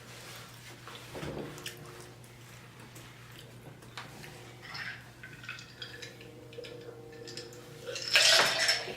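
Faint clicks and clinks of cutlery and dishes while eating, over a steady low hum. About eight seconds in comes a loud, brief burst of noise.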